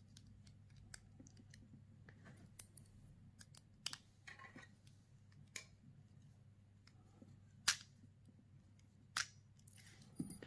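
Small screwdriver and fingers working on the plastic chassis of a Tomy Plarail toy train motor unit as it is screwed back together: scattered faint clicks and light plastic scrapes, with two sharper clicks near the end.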